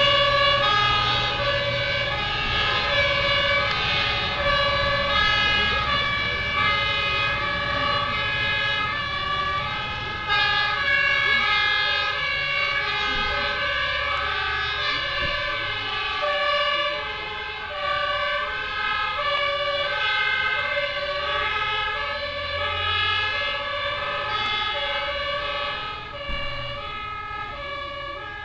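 Two-tone horns of several German fire engines sounding at once, out of step with each other, over the low rumble of the trucks' engines. The sirens grow fainter toward the end as the trucks move away.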